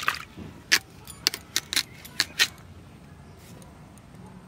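A run of about seven short, crisp cutting sounds as giant taro (mankochu) is sliced against a boti blade, all within the first two and a half seconds. The crisp cut is what the cook looks for: she takes it as the sign of good taro that won't make the throat itch.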